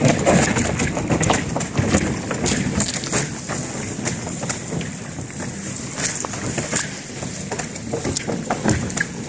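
Thin sheet ice breaking against a sailboat's hull as the bow pushes through it: a low grinding rumble full of sharp crackles and snaps, loudest in the first few seconds.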